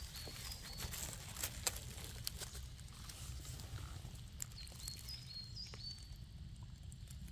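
Light crackles and rustles of forest-floor twigs and leaves under hand and foot, over a steady low rumble. A small bird gives short high call notes in two runs, near the start and about four and a half seconds in.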